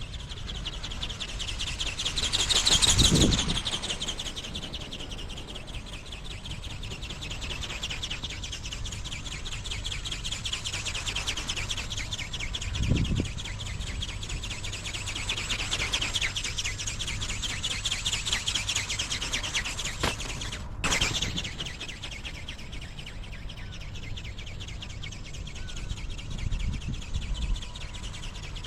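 Strong wind buffeting the microphone in gusts, the biggest a few seconds in and smaller ones later, over a steady high, fast chirring.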